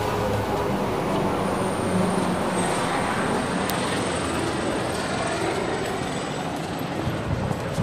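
Steady city street noise: a broad hum of traffic with a faint, thin high whine running through it.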